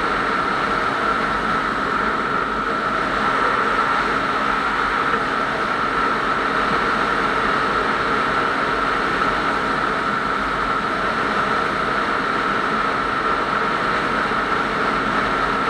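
Steady driving noise from a vehicle cruising at highway speed: an even rush of wind and tyres over a constant engine drone, with a steady higher whine running through it.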